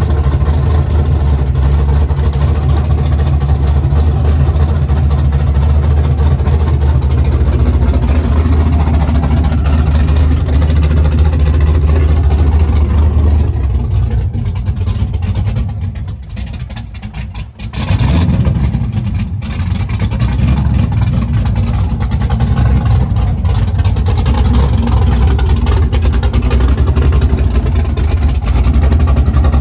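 LS V8 engine of a swapped Datsun 280Z running loud and steady under load, its note falling away for a moment past the middle and then coming back up.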